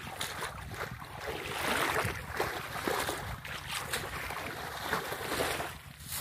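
Wind buffeting the microphone, mixed with water sloshing and splashing as a person wades through a shallow, muddy pool.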